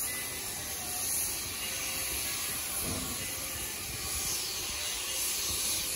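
Steady hiss of escaping steam from two 1870s Baldwin narrow-gauge steam locomotives moving slowly away.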